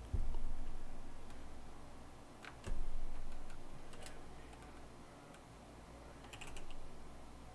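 Computer keyboard typing: a few scattered keystrokes and a short run of keys near the end. Two dull low thumps stand out, one just after the start and one a little under three seconds in.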